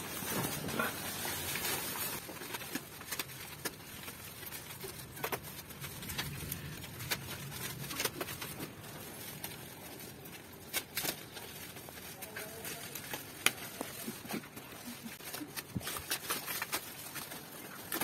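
Plastic packaging being pulled and torn off a new folding bicycle's frame, rustling and crinkling with scattered sharp crackles.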